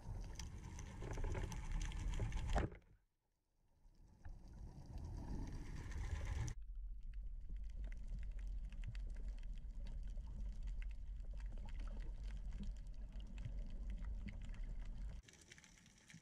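Muffled water noise picked up by an underwater camera: a low rumble with faint scattered crackling clicks. It drops abruptly to near silence for about a second near the start, and from about six seconds in becomes a steadier low drone that falls away near the end.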